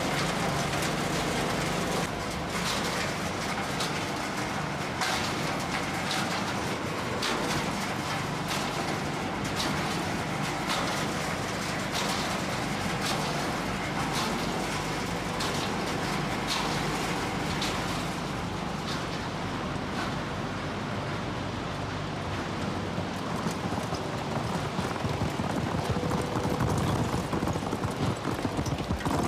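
Refrigerator-recycling machinery running with a steady low hum and irregular clattering knocks of scrap pieces, the knocks growing sparser about two-thirds of the way through.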